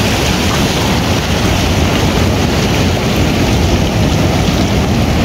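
Steady rush of shallow surf and moving sea water, with wind buffeting the microphone.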